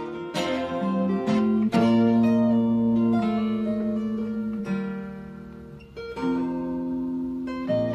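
Acoustic guitar playing an instrumental opening, with chords struck every second or two and left to ring.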